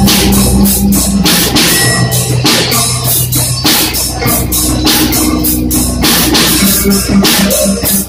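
Rock music played live by a robotic machine band: a mechanically struck drum kit keeps a steady beat under electric guitar and bass.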